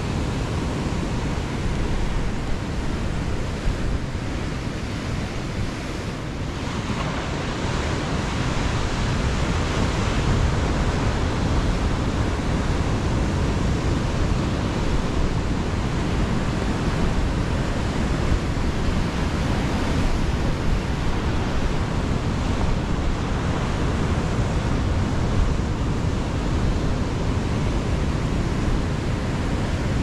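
Ocean surf and wind making a steady, dense rushing noise, swelling slightly about seven seconds in.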